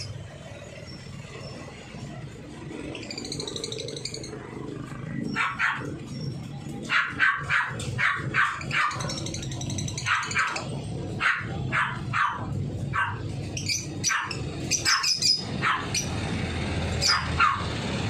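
Lovebirds calling: short, sharp chirps repeated many times in quick series, starting about five seconds in and running on until near the end, over a steady low background rumble.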